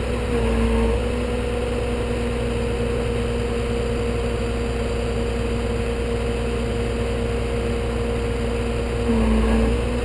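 Tow truck's engine idling, a steady hum over a low rumble; its pitch dips briefly near the end.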